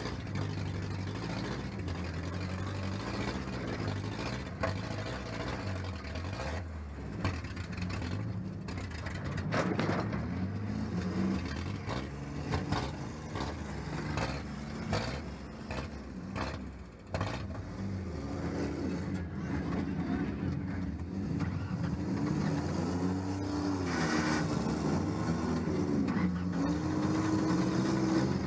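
1997 Ford Ranger's engine, heard from inside the cab, running and being revved up and down repeatedly during a demolition derby, with scattered knocks and clanks from the truck body.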